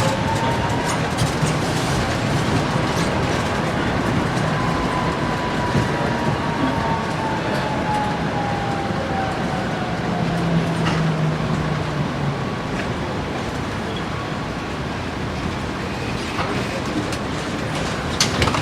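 A tram running on its rails: a steady rumble with occasional clicks, and a faint whine that rises near the start and then slowly sinks in pitch over several seconds.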